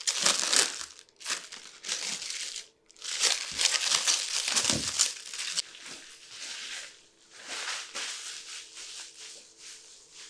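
Packaging being unwrapped from table kit parts: irregular crinkling and tearing, busiest in the first half and thinning out toward the end.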